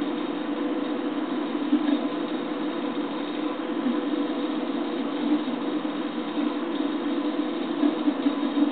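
Stepper motors of a home-built H-Bot 3D printer driving the gantry slowly in a dry run without printing, a steady hum with a few constant tones.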